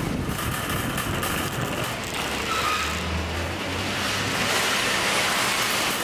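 Empty wire shopping trolley being pushed across car-park pavement, its wheels and frame making a steady rolling rattle.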